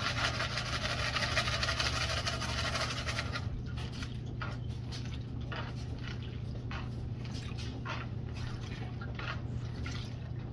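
Muddy water splashing as it is poured from a classifier sieve of gravel into a water-filled gold pan. The pour is steady and loudest for the first three seconds or so, then gives way to softer trickles and scattered small splashes.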